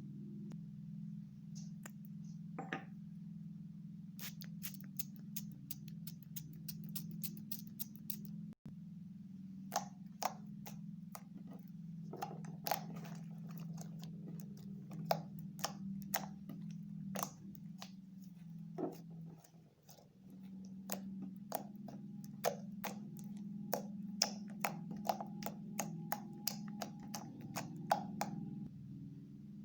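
Slime being squished and worked by hand, giving many sharp wet clicks and pops, irregular and sometimes in quick runs, over a steady low hum.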